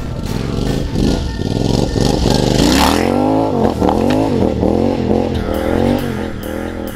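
Triumph bobber motorcycle engine revving hard as the bike passes close by on grass, its rear wheel throwing up turf. The engine note rises and falls in several quick surges from about three seconds in.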